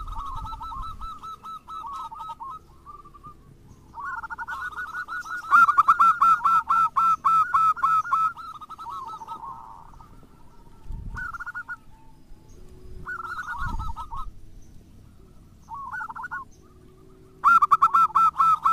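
Zebra dove (perkutut) cooing in several phrases of fast rolling coos. The longest and loudest phrase comes about five seconds in, shorter ones follow, and another loud phrase starts near the end.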